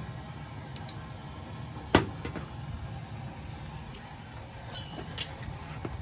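Dunkirk gas-fired low-pressure steam boiler running with its main burner lit and its water already boiling, a steady low sound. A single sharp tap about two seconds in is the loudest sound, with a few fainter clicks later.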